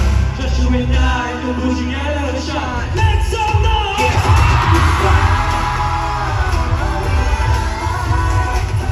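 K-pop boy group singing live over an amplified pop backing track, heard from the audience, with the crowd screaming and cheering loudly about four seconds in.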